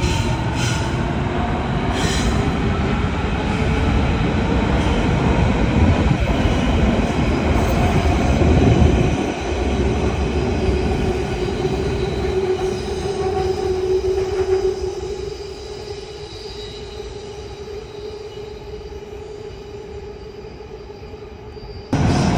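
Berlin S-Bahn electric train running, its motors giving a whine of several steady tones over rail and wheel rumble. The noise drops to a quieter run after about fifteen seconds, then jumps back up suddenly near the end.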